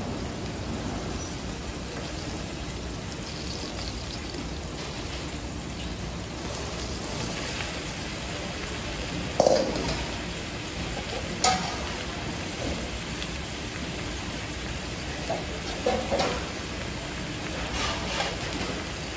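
Vegetables sizzling steadily on a hot flat iron griddle, with a few sharp metal clanks from the cooking utensils, the loudest two about nine and a half and eleven and a half seconds in.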